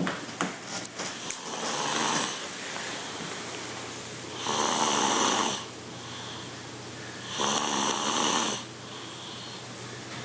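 A woman snoring in her sleep: three loud snores, each about a second long and roughly three seconds apart, with softer breaths between them. A few sharp clicks and knocks in the first second or so.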